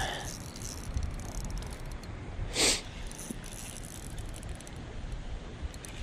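Spinning reel being cranked steadily while fighting a hooked smallmouth bass, its gears rattling faintly. A short loud burst of noise comes about two and a half seconds in.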